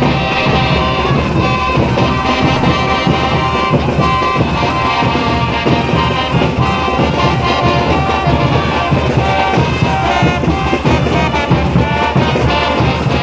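Brass band music playing continuously for the folk dance, with trumpets and trombones over a steady drum beat.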